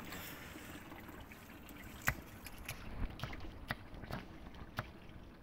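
Kitchen knife slicing green chilies on a chopping block, giving a few separate sharp taps from about two seconds in.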